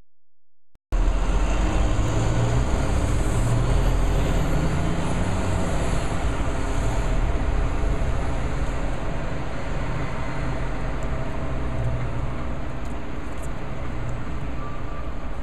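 Road traffic: vehicle engines rumbling past on a street, a steady noise that cuts in suddenly about a second in.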